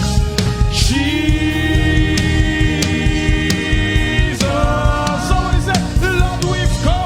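Live gospel praise music: voices singing over a band with heavy bass and regular drum strikes, holding one long note through the middle before moving into shorter sung phrases.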